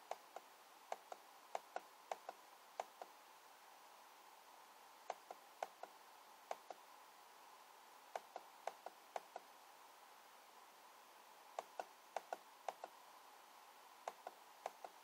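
Sharp clicks from the controls of a computer being worked to scroll down through code, in groups of two to six a few seconds apart, over a faint steady hiss.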